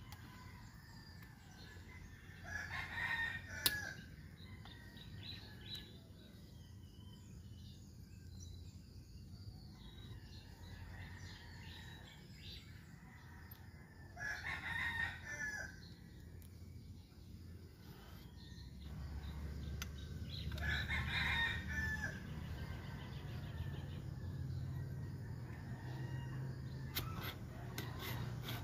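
Rooster crowing three times, each crow about a second long and spread well apart. A low hum comes in during the second half, and there are a few light clicks near the end.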